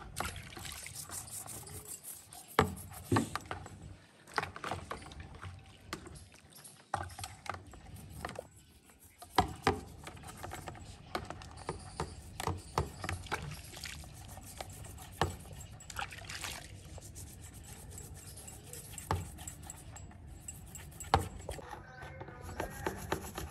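Toothbrush scrubbing a plastic air-filter grille in a tub of hot soapy water, with water splashing and scattered sharp knocks of the plastic against the tub.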